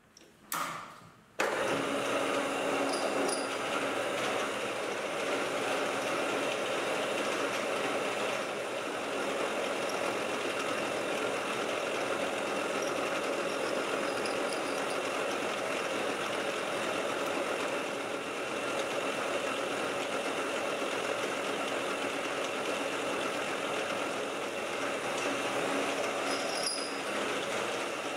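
Metal lathe running under power while a cutting tool turns a metal rod: a steady machine noise with a constant hum and a higher whine. It comes in suddenly about a second and a half in, after two short knocks.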